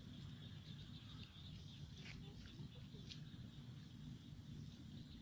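Faint open-field ambience: a steady low rumble with a faint high hiss and a few short, high chirps about two and three seconds in.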